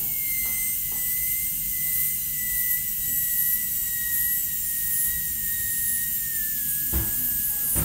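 High-speed dental handpiece with a 330 bur cutting a cavity preparation into a molar: a steady high whine over a hiss, sinking slowly in pitch, that stops near the end.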